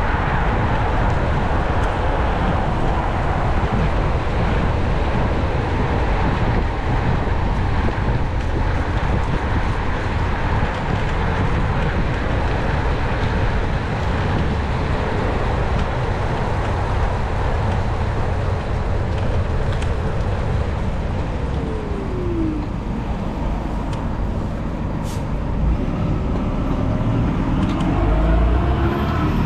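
Steady rush of wind and road noise from a NIU KQi3 Pro electric scooter being ridden through city traffic, heaviest in the low end. A brief falling tone comes a little past the middle, and the noise swells near the end.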